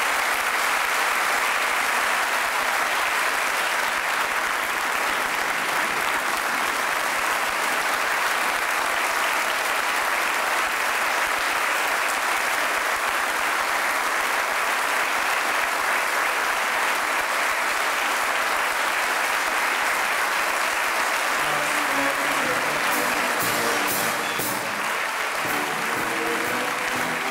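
Large theater audience applauding steadily. About twenty seconds in, an orchestra starts playing under the applause.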